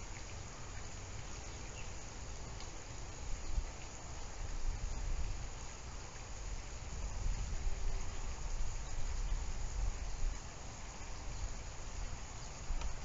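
Steady outdoor background noise: an even hiss with a low, uneven rumble underneath and no distinct events.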